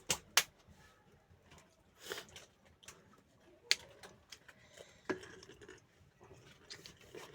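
A few short, sharp clicks or knocks: two right at the start, one a little before four seconds in and one just after five seconds, over a quiet background.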